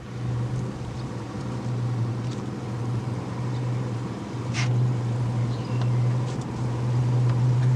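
Boat engine running with a steady low hum, with a single sharp click about halfway through.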